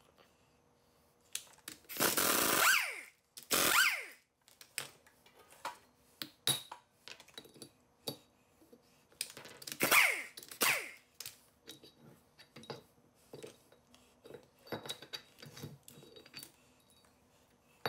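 Pneumatic impact wrench running in four short bursts, two early and two about ten seconds in, each dropping in pitch, as it loosens the bolts holding the old ring gear to the differential carrier. Between the bursts, loose bolts and tools clink and knock on the concrete floor.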